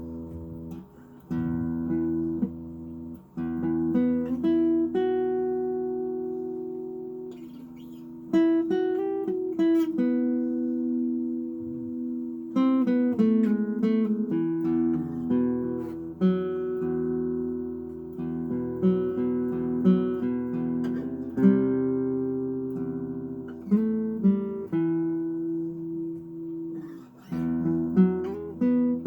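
Washburn acoustic guitar being played solo. Chords ring out for a second or more each, with short runs of picked single notes between them.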